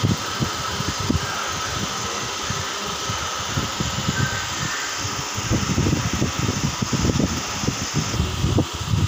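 Small milling machine running with a steady motor whir and hiss, with irregular low rumbling bumps through it, heavier in the second half.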